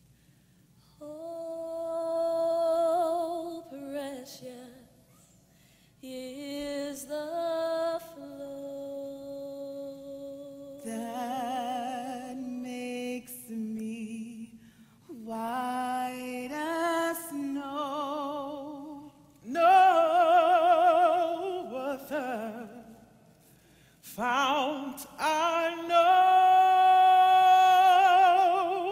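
A woman singing unaccompanied in long, wordless phrases with strong vibrato, ending on a loud held note.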